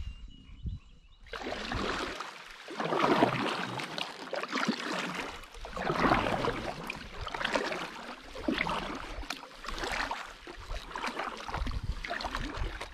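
Double-bladed kayak paddle dipping and pulling through lake water, a swishing splash that swells and fades with each stroke, beginning about a second in.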